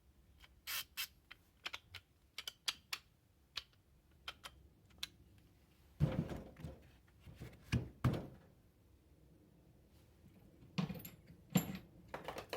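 Ratchets and sockets being handled: scattered light clicks for the first few seconds, a few heavier knocks from about six to eight seconds in, then more clicks near the end.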